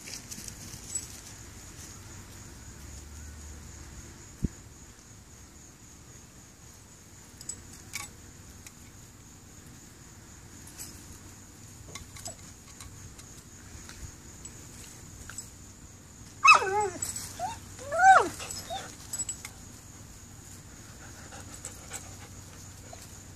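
Dog whining: a short cluster of high, wavering whines rising and falling in pitch about two-thirds of the way through, between quiet stretches with a few faint ticks and a thin steady high tone in the background.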